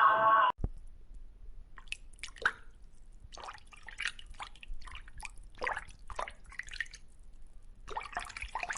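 Music cuts off about half a second in, followed by a scattered series of small wet drips and pops of water.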